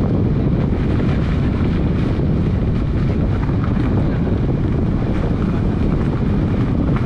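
Steady wind buffeting the microphone from a moving car's open window, with road noise underneath.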